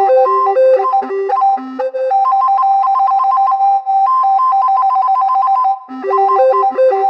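Expressive E Osmose 49 synthesizer keyboard played solo in a bright, bell-like tone. A melody gives way about two seconds in to quick, rapidly alternating notes, which break off briefly near the end before the melody resumes.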